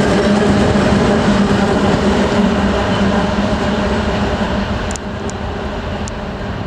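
2M62UM two-section diesel locomotive running light past and away, its engines giving a steady low drone over wheel rumble that slowly fades as it recedes. A few faint high clicks come near the end.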